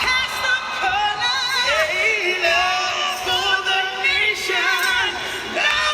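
A man and a woman singing a soul duet live, holding long notes together with wide vibrato and sliding runs.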